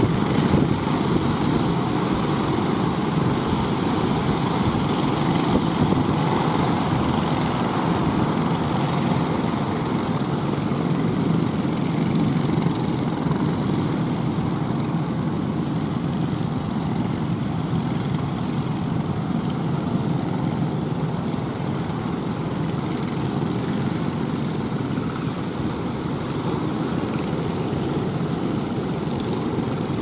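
Engines of outrigger fishing boats running steadily, mixed with the wash of heavy surf.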